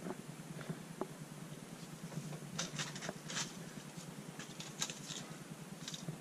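Blister-packed fishing lures rustling and clicking as they are handled and pulled off pegboard hooks. There are a few faint ticks, then short crinkling rustles in the middle and again near the end.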